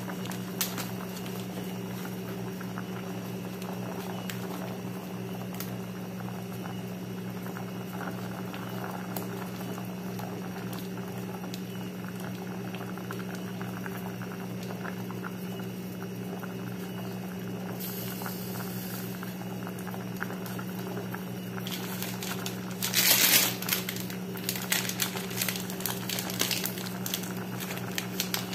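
A pot of broth with mussels and shrimp at a rolling boil, bubbling steadily over a steady low hum. About 23 seconds in there is a brief loud rustle, followed by lighter crinkling of a plastic seasoning packet.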